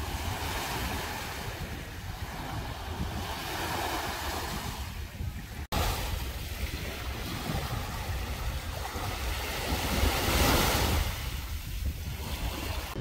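Small waves washing up onto a sandy beach, the rush of surf swelling and fading with each wave, loudest about ten seconds in, over a low rumble of wind on the microphone. The sound breaks off for an instant a little under six seconds in.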